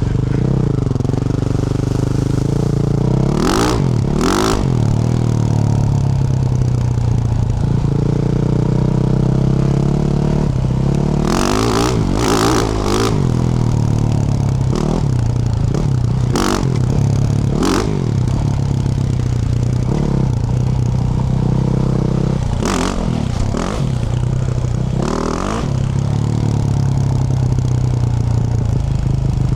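2024 Yamaha YZ450F's 450 cc single-cylinder four-stroke engine, through a Yoshimura RS-12 exhaust, being ridden: the revs rise and fall again and again with throttle and gear changes. Several short sharp clatters cut in over it, two early on, a cluster in the middle and a few more later.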